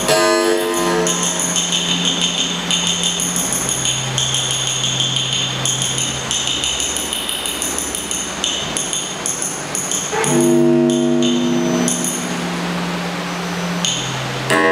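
Electronic sound from a modular synthesizer being played live: a held low drone under a hissing noise texture and steady high metallic tones. About ten seconds in, a louder cluster of stacked pitched tones comes in over the drone.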